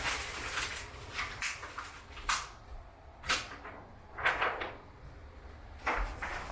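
A string of separate knocks and bumps, roughly one a second, like cupboard doors or furniture being handled.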